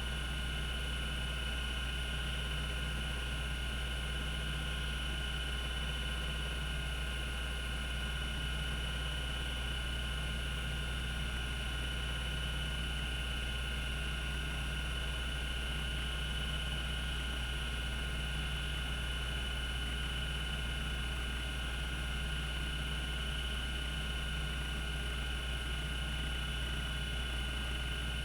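Cogito Systems CG-912 10 MB 5.25-inch MFM hard disk spinning at its 3600 RPM running speed: a steady low hum with a thin steady high whine, with no head-seek clicks.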